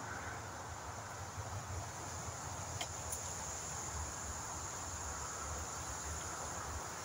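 Outdoor ambience: wind buffeting the microphone with a low, uneven rumble over a steady high hiss, and two faint clicks about three seconds in.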